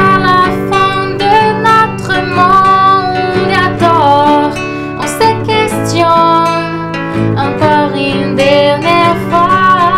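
A woman singing a French song into a microphone, accompanied by a nylon-string classical guitar.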